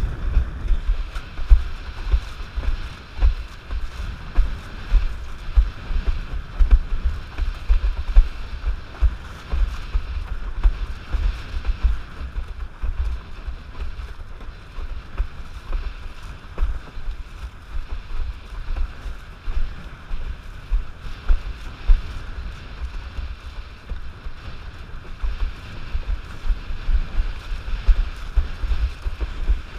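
Wind buffeting the rig-mounted camera's microphone in constant, irregular low gusts, over the steady rush and splash of a Starboard 94 windsurf board planing through choppy water.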